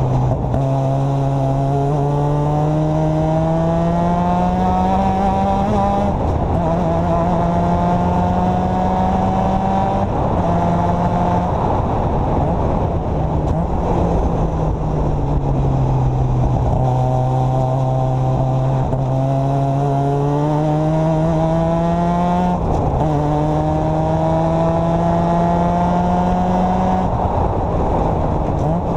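Formula Mazda's 13B two-rotor rotary engine heard from the open cockpit at racing speed, climbing in pitch through the gears with a sharp drop at each upshift. It falls away under braking and downshifts about halfway through and again near the end, over a heavy rush of wind and road noise.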